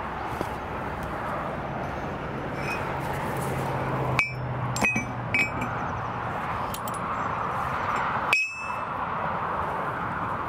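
A broken-off A2 steel anvil top plate clinking against the cast iron anvil body as it is handled: about five light metallic clinks, each with a short ring. The loudest come about four and about eight seconds in.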